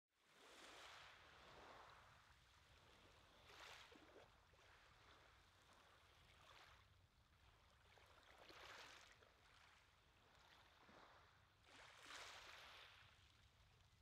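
Faint small waves washing onto a shingle beach, a soft hiss that swells and fades every three to four seconds over a low steady rumble.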